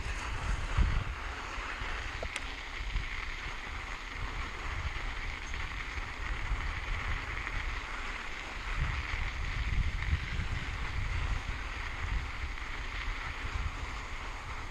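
Wind buffeting a chin-mounted action camera's microphone as a mountain bike rolls down a sandy trail, over a steady hiss of tyres on sand. There is a single sharp click about two seconds in.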